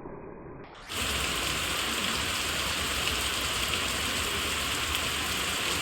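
Heavy monsoon rain pouring steadily, starting abruptly about a second in after a brief muffled low rumble.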